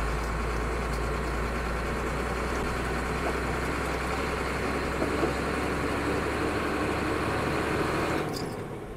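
Loaded truck driving along a road: steady engine and road noise with a deep low rumble, easing off near the end.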